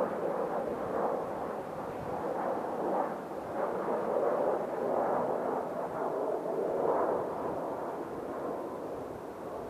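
Jet airliner engine noise, a rough rumbling rush that swells in the middle and eases near the end.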